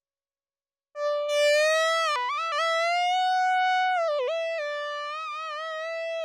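Novation Bass Station II analogue synthesizer playing a single held note with a bright, buzzy tone. It comes in about a second in, slides up slightly, then drops and returns in pitch a few times, like pitch-bend dips, with a slight wobble near the end.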